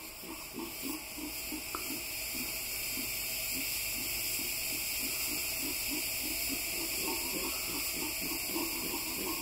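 Venezuelan red howler monkeys roaring: a deep, rhythmic run of guttural grunting pulses, about two to three a second, that builds over the first few seconds and then holds. These are males answering an imitated howl, an aggressive territorial response. A steady high hiss runs underneath.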